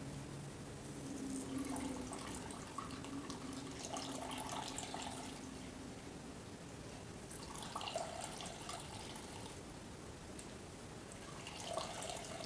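Almond milk splashing and dripping into a glass bowl as it is squeezed out of a straining cloth, swelling in about four spells as the cloth is pressed.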